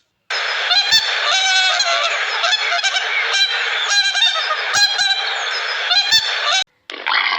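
A flock of geese honking, many short calls overlapping, cutting off suddenly near the end.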